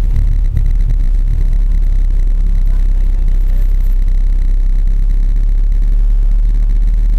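Suzuki Grand Vitara driving on a snow-covered track, heard from inside the cabin: a steady low engine and road drone with no revving.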